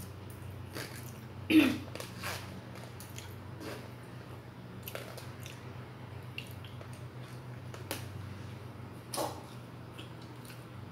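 Eating sounds: a metal fork and spoon clicking and scraping in a plastic food container, with chewing, over a steady low hum. Two louder short sounds stand out, one about a second and a half in and one near the end.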